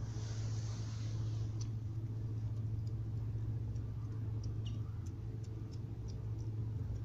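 Kittens eating porridge with chicken off a plate, their chewing and licking heard as faint scattered clicks, over a steady low hum.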